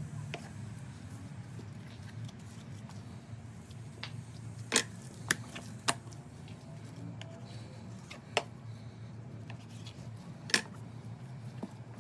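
Gloved hands handling a raw brisket and knife on a plastic cutting board: a few scattered sharp clicks and taps, the loudest about five and ten seconds in, over a low steady hum.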